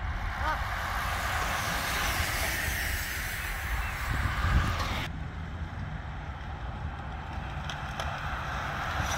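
Wind buffeting the microphone with a steady rushing hiss, of the kind heard while riding a bicycle outdoors. The hiss cuts off abruptly about five seconds in while the wind rumble carries on, and a few faint bird chirps come near the start.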